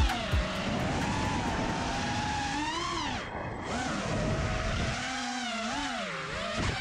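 FPV quadcopter's motors whining, the pitch swinging up and down again and again as the throttle changes in flight.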